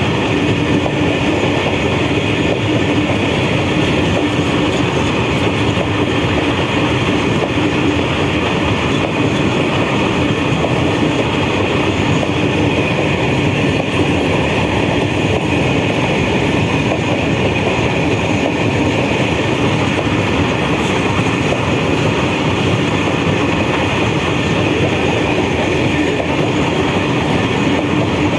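Long freight train of BCNAHSM1 covered box wagons rolling steadily past: a loud, continuous rumble of steel wheels on rail, with a steady hum and a higher ringing tone.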